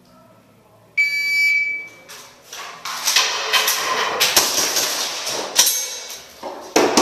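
A shot timer gives one steady, high beep lasting about a second to start the stage. About a second and a half later a gas blowback airsoft pistol fires a rapid string of sharp shots that runs on to the end.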